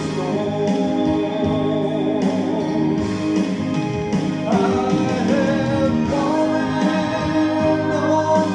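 A man singing a gospel song through a handheld microphone over instrumental accompaniment.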